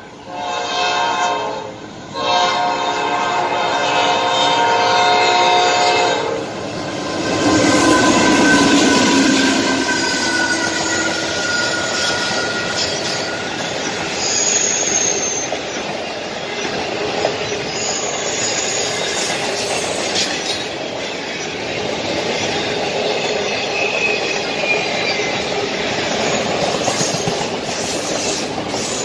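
A locomotive horn blows a short blast and then a long one that ends about six seconds in. The train then rolls past with a steady rumble and clickety-clack, and its wheels squeal now and then.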